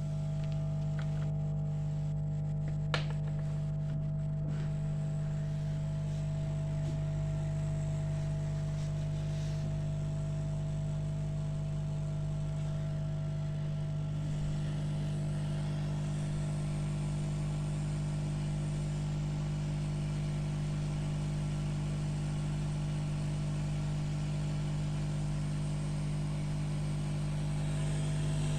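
Steady electric hum of a small motor or fan, with a single sharp click about three seconds in.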